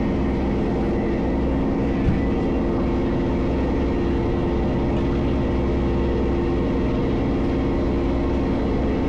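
Crab fishing boat's engine running steadily with a constant drone, and a single short knock about two seconds in.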